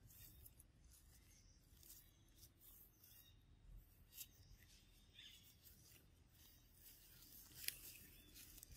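Near silence, with faint scattered rustles and small ticks; the sharpest tick comes just before the end.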